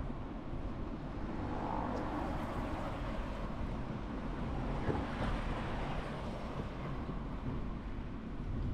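Steady low rumble of a moving vehicle with wind noise on the microphone.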